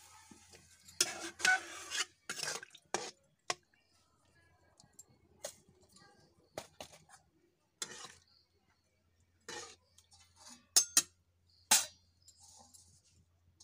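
Metal ladle stirring and scraping in a steel kadai of curry, with scattered clinks of metal on metal; the sharpest, loudest clinks come about 11 and 12 seconds in.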